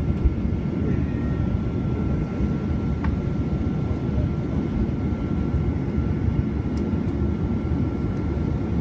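Boeing 737-800's CFM56 turbofan engines at high thrust, heard inside the cabin during the takeoff roll: a steady deep roar with a thin steady whine above it.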